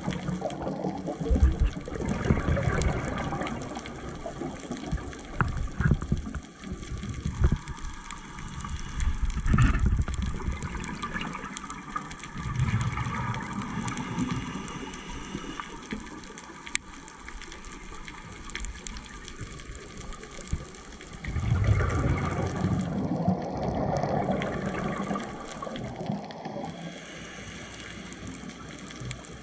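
Underwater audio of a scuba diver breathing through a regulator: exhaled bubbles rumble and gurgle in several surges lasting a few seconds each, the longest near the end, over a steady underwater rushing hiss.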